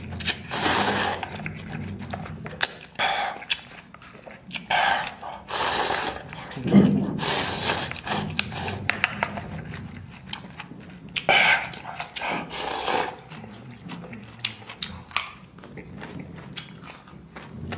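A person slurping beef noodles in soup, noisy sucking bursts again and again, with chewing in the quieter stretches between.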